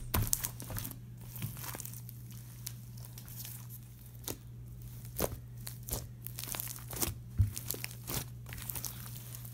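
Crunchy slime full of foam beads being squeezed and kneaded by hand, giving irregular crackles as the beaded slime is pressed and pulled apart.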